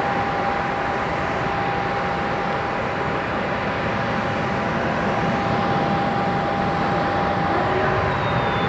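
Jet engines at low power across an airfield: a steady roar with a constant high whine held over it.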